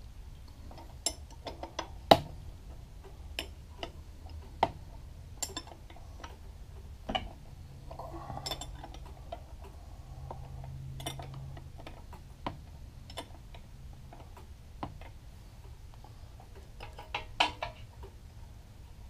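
Small metal clicks and clinks as a wrench, nuts and lock washers knock against the steel change gears of a power feeder's gearbox while the gear retaining nuts are loosened and taken off. They come at irregular intervals, the sharpest about two seconds in and a quick cluster near the end.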